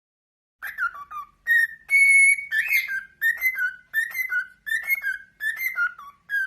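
A pet bird whistling a string of short notes, mostly in pairs that step down in pitch, repeated less than a second apart after a brief quiet start.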